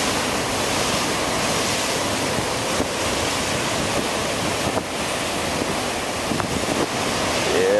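Rough ocean surf breaking over black lava rocks and washing through them as churning whitewater, a steady rush, with wind buffeting the microphone.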